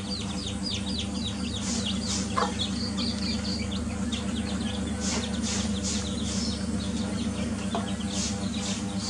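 Domestic chicks peeping over and over in quick, high, falling notes while they peck at food, over a steady low buzz.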